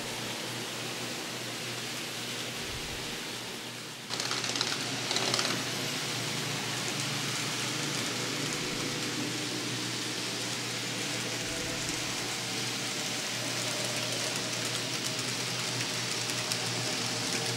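N scale model trains running on the layout: a faint whir of small locomotive motors and wheels on the rails under a steady hiss, with a sudden step up in loudness about four seconds in.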